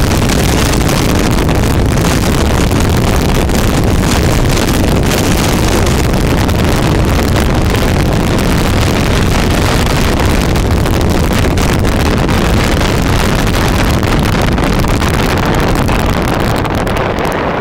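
A 29-foot big-block powerboat running flat out over chop, heard as a loud, steady rush of wind buffeting the microphone over the boat's engine and hull noise.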